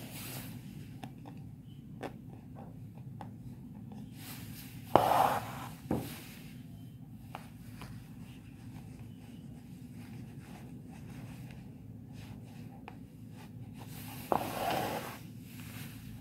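Embroidery needle and thread drawn through fabric stretched in a hoop: two rasping pulls, each starting sharply and lasting about a second, roughly nine seconds apart, with faint ticks of handling between them over a steady low hum.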